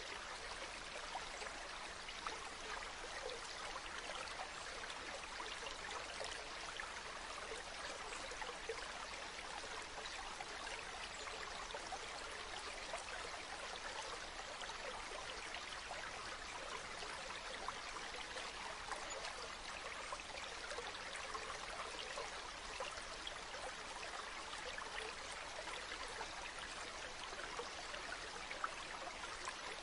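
Shallow stream running over pebbles: a steady, even rush of water full of small trickles and splashes.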